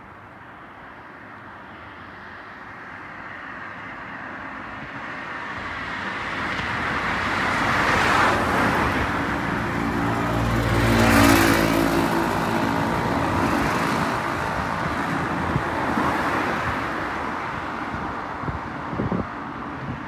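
Road traffic passing: tyre and engine noise swells, peaks about halfway through and fades away again. A few short knocks near the end.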